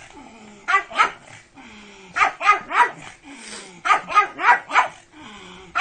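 Pug barking in quick clusters of two to four sharp barks, with short falling whines between the clusters.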